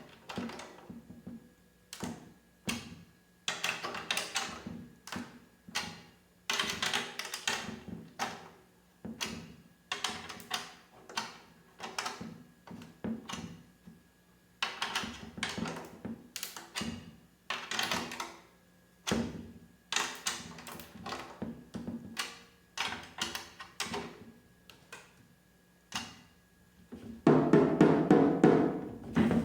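Snare drum head tapped again and again while it is being tuned: short taps with a brief ring, in clusters with pauses. Near the end comes a louder burst of rapid strokes on the drum.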